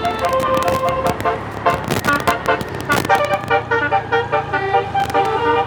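A bus's telolet basuri musical air horn, driven by a Zeta module, playing a tune of quick stepped notes, with sharp clicks between them.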